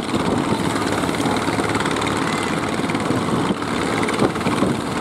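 A boat's engine running steadily with a fast, even pulse.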